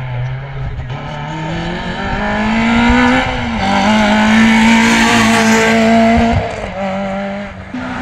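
Rally car engine accelerating hard as the car approaches and passes close by, its pitch climbing, then dropping sharply twice at gear changes and jumping back up near the end, loudest in the middle as it passes.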